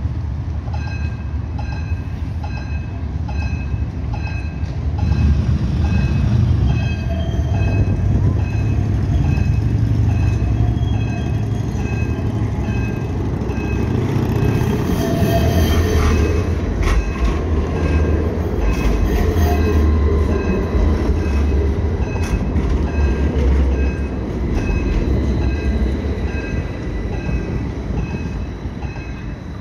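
A light-rail tram running past through a curve in the tracks, its low running noise building over several seconds and loudest around the middle, with road traffic passing. Short electronic beeps repeat evenly about twice a second throughout.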